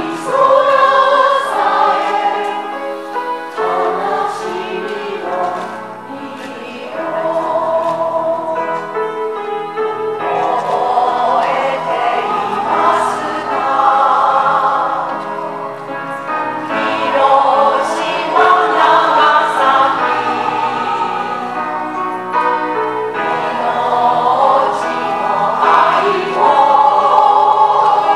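A mixed choir of elderly men and women singing in harmony, in sustained phrases that swell and ease in loudness.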